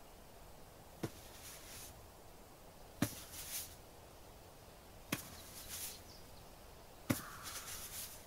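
Quiet ASMR pressure-point massage sounds: a hand pressing down with a soft knock, then a short rustle, four times about two seconds apart.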